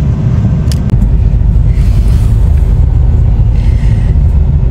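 Low, steady rumble inside a car's cabin with the engine running, and a cloth rubbing on the window glass twice, faintly.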